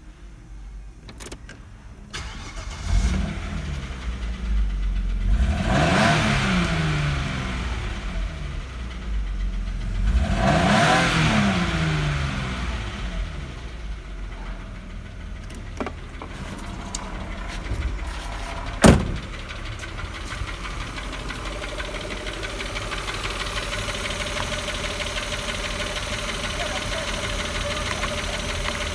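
Opel Omega B's 2.5-litre X25XE V6 starting about three seconds in. It is revved twice, rising and falling in pitch, then settles to a steady idle. There is a sharp click about two-thirds of the way through, and for the last few seconds the engine is heard up close.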